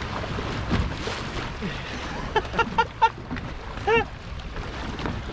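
Wind and water noise on a small boat, with a quick run of about five short pitched calls about two and a half seconds in and a single rising-then-falling call about four seconds in.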